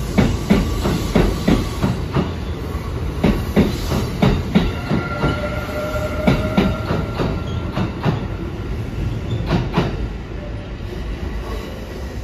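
A rapid express electric train passing slowly through the station on a sharp curve, its wheels clacking over the rail joints about three times a second, with a thin wheel squeal from the curve in the middle. The train is slowed right down for the curve.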